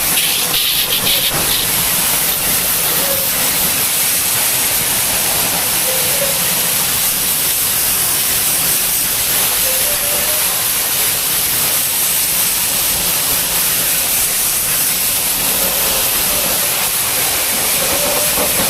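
High-pressure jet pump spraying water in a steady hiss, as used for washing an AC unit.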